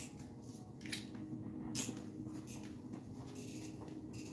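Faint scattered ticks and soft rustles of a person moving about in a small room: light handling noises and steps as he moves away from the table.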